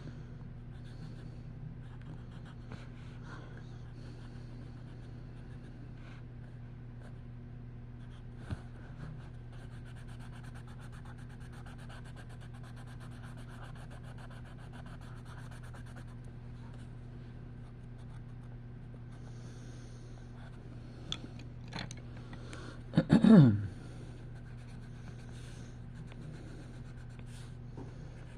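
Soft scratching of coloring strokes on paper over a steady low hum, with a few small clicks. About 23 seconds in, one loud short burp with a falling pitch.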